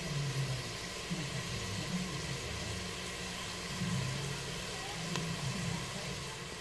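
Diced ham, onion and garlic sizzling steadily in a pot as the splash of gin cooks down, over a low rumble.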